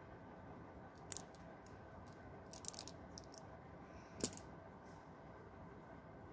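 Small pink-handled scissors being handled, giving a run of sharp little clicks. There is a quick cluster about two and a half seconds in and one louder click a little after four seconds, between faint room tone.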